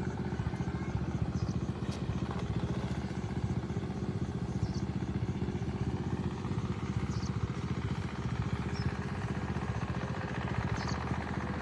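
A small engine running steadily at idle, with a few faint high ticks now and then.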